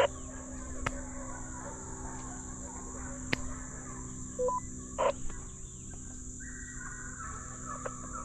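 Hunting hounds baying in the distance while running deer: a few short calls, then a longer drawn-out bay near the end. A steady high insect drone runs underneath, and a sharp knock comes at the very start.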